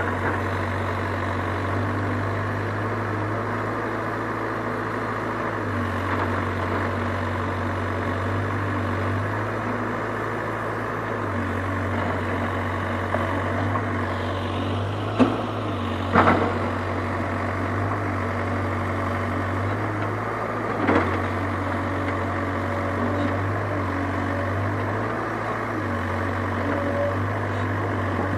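Diesel engine of a digger running steadily, its low hum swelling and easing every few seconds as it works. Three sharp knocks stand out over it, two close together about halfway through and one a few seconds later, the second the loudest.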